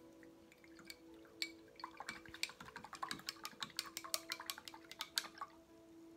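Paintbrush being cleaned: a rapid run of small clicks and taps, about a second in and lasting some three seconds, as the brush is rinsed in a water jar and wiped on a rag.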